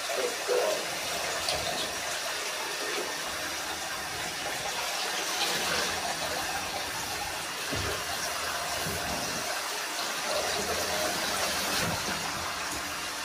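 Handheld shower head running steadily, its spray hitting a malamute's thick wet coat and the bathtub.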